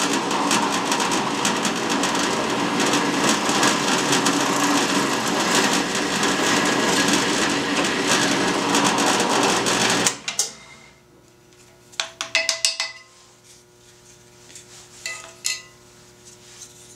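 Drill press running with a 1/4-inch twist bit boring a hole through a small block of wood, a steady loud whir and cutting noise that stops suddenly about ten seconds in. After that come a few light clicks and knocks as the drilled wooden block is handled on the metal table.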